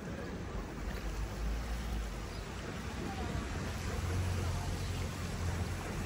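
Outdoor street ambience: a steady rush of noise with a low rumble that swells twice, under faint voices of passers-by.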